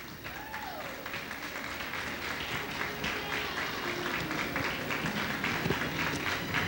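Audience applauding, many hands clapping; the applause swells over the first second or two and then holds steady.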